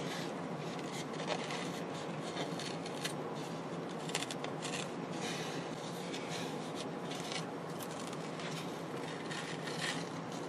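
Old cloth speaker grille being peeled and picked off a wooden speaker board, scratching and tearing as it comes away from the wood, with many small scratchy ticks over a steady hiss.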